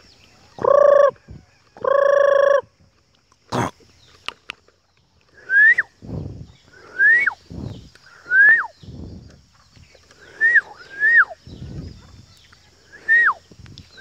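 Mynah-like calls: two sustained squawks near the start, then a series of about seven whistles, each rising and then dropping sharply, roughly a second and a half apart, with soft low rustling between them.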